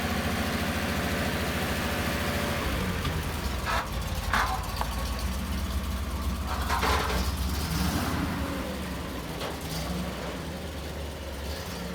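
Tatra 613's rear-mounted air-cooled V8 running at idle, a steady rumble whose pitch settles lower about three seconds in. A few brief, higher sounds break in around four and seven seconds.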